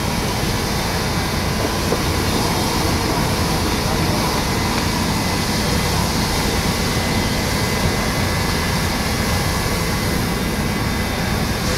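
Fire engine running its water pump steadily, with the rushing of a hose jet spraying water on the fire.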